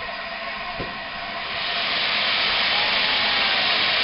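Steam hissing from the Peppercorn A1 Pacific steam locomotive 'Tornado', swelling into a loud, even hiss about a second and a half in.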